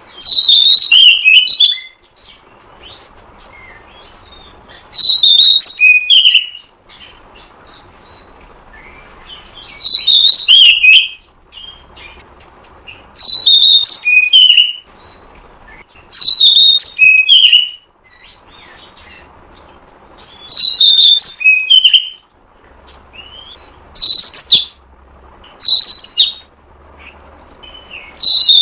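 Oriental magpie-robin (kacer) song played as a bird-trapping lure: loud short phrases of high, quickly changing whistled notes, each about a second long, repeated every three to four seconds with faint hiss in the gaps.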